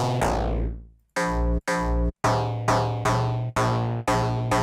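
Synplant 2 software synthesizer playing a distorted bass note again and again, about six times, each note starting bright and quickly darkening, with short gaps between. The timbre shifts from note to note as the AI cloning tries one patch after another to match an aggressive bass sample.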